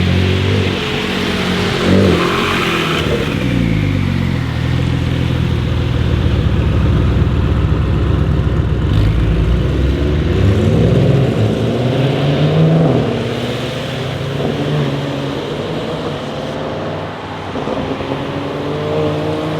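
Audi RS7 Sportback C8's twin-turbo 4.0-litre V8 running and being revved, its note rising and falling several times: about two seconds in, again around ten to thirteen seconds, and climbing near the end.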